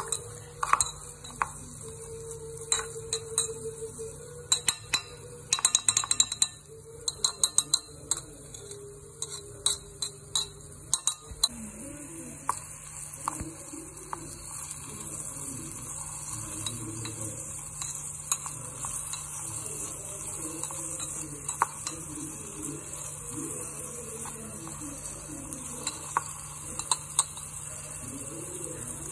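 Metal spatula clinking and scraping against a small aluminium pot as chopped onions and capsicum are stirred: a run of quick clinks, densest about six seconds in and thinning out after the first half, over a steady hiss.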